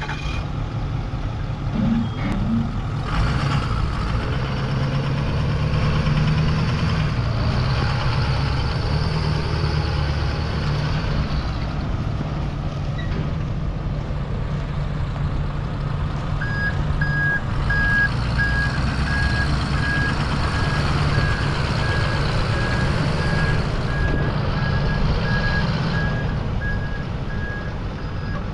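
Ford F550 truck's engine idling steadily. About halfway through, a reversing alarm starts beeping, about two short beeps a second, at one pitch, and runs on over the engine.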